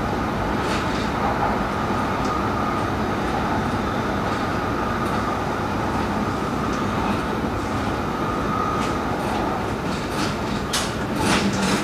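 Steady running noise heard inside a Tohoku Shinkansen car at speed: a constant rumble with a faint high steady hum. A few sharp clicks come from the running gear, bunching up near the end.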